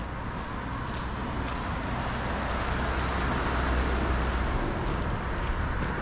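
A car going by: a rush of road noise with a low rumble that swells to a peak about four seconds in and then fades.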